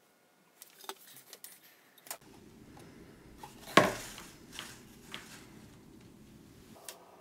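Light clicks and knocks of small wooden blocks being picked up and handled on a cutting mat, then one sharp knock just before four seconds in as a cardboard box is set down, with a few softer taps after it.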